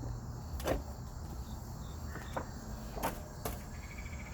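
Insects trilling in the background, with a thin, rapidly pulsing trill coming in near the end. A few short, light clicks and knocks from handling sound over it.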